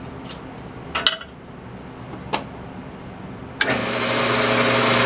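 A few sharp metallic clicks, then a Jet metal lathe's motor switches on about three and a half seconds in and its three-jaw chuck spins up with a steady hum and a whir that grows louder.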